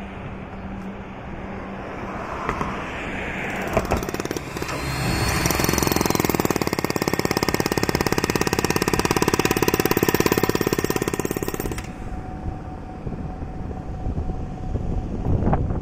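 Corded Makita electric demolition hammer breaking up asphalt along a bridge expansion joint: a fast, steady hammering that runs for about seven seconds in the middle and then stops. Before and after it, road traffic goes by.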